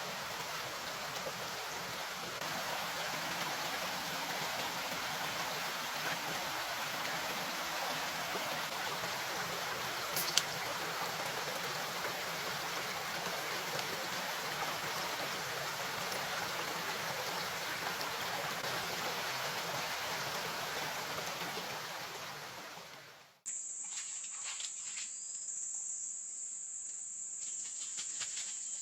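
A steady, even hiss of water, like heavy rain or a stream, that fades out about 22 seconds in. After an abrupt change, a high steady buzz with a few faint clicks.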